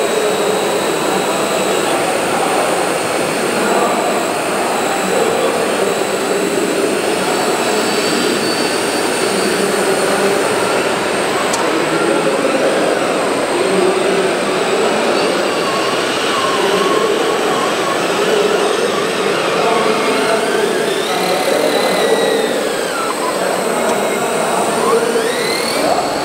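Hydraulic pump of a large-scale radio-controlled Liebherr 954 excavator running steadily as the machine digs, with a continuous whine and the pitch bending now and then in the later part, over the busy din of an exhibition hall.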